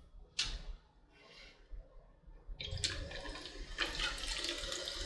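Sparkling water being poured into a bottle, a continuous fizzing, splashing pour that starts about two and a half seconds in, after a few short soft hisses.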